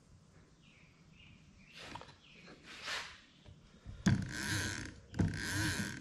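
Fishing reel and reel-winder spindle being turned and handled by hand: faint handling sounds, then two stretches of mechanical whirring about a second long each, starting about four seconds in.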